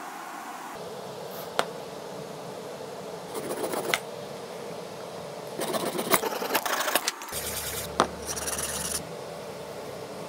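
Flush-cut saw trimming protruding wooden corner keys flush with a plywood box: two short spells of quick rasping saw strokes, the second longer, with a few sharp clicks. A rougher rubbing noise follows near the end.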